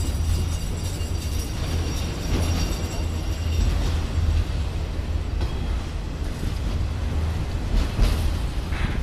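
CSX freight train's autorack cars rolling past, steel wheels on the rails, with a steady low rumble. A faint high ringing fades out about four seconds in.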